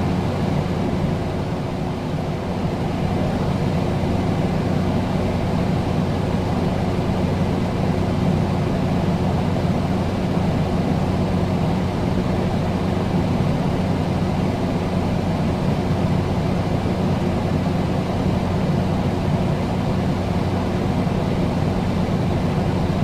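A steady low hum with a constant rushing noise under it, unchanging throughout.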